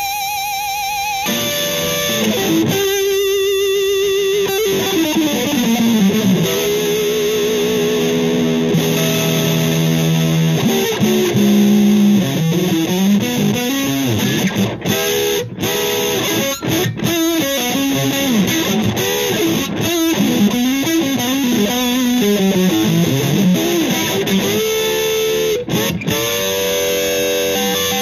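Telecaster-style electric guitar playing a lead line of single sustained notes with string bends and wide vibrato.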